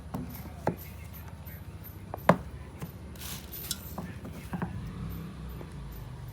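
Handling of a smartwatch and its packaging: a few scattered clicks and knocks, the loudest a little over two seconds in, and a short rustle about three seconds in, over a steady low hum.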